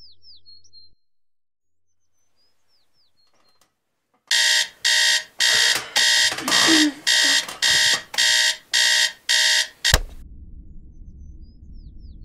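Digital alarm clock beeping, about two beeps a second, for roughly six seconds, then cut off with a click as it is switched off.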